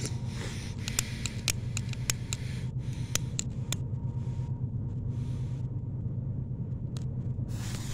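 A long-nosed utility lighter clicked repeatedly, a run of sharp clicks, then short hisses as its flame is held to a firework fuse, over a steady low hum. A louder rush of hiss comes near the end.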